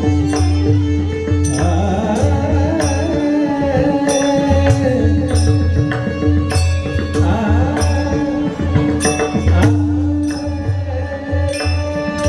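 Marathi devotional singing: a male voice singing a high, ornamented melodic line over a steady held drone and a hand drum keeping a rhythm of repeated strokes with deep bass thumps.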